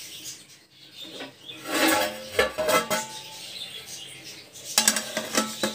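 Metal kitchen utensils clinking against a steel cooking pot, with a cluster of quick clinks near the end.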